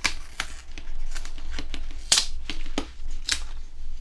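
Front cover of a Thurlby 1905a bench multimeter being worked off by hand: a string of irregular sharp clicks and scrapes, the loudest about two seconds in.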